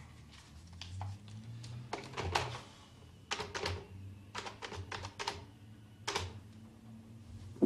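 Clicks from a telephone being dialled: several short runs of sharp clicks with pauses between them, and a loud knock at the very end.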